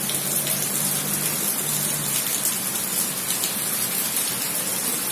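Heavy rain falling steadily on wet paving, a constant even hiss of drops.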